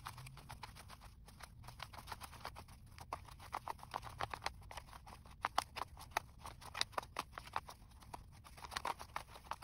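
A stack of worn paper one-dollar bills being thumbed through note by note: quick soft flicks and rustles of paper, several a second, coming thicker and a little louder in the middle.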